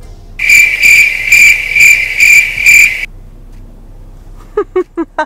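Cricket chirping sound effect: six loud, evenly spaced chirps about half a second apart, stopping suddenly. It is the stock gag for an awkward silence. A few short, clipped vocal sounds follow near the end.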